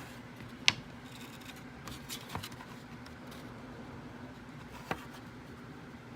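Hands handling small objects: one sharp click about two-thirds of a second in, a few softer knocks and scrapes later, with a faint steady hum underneath.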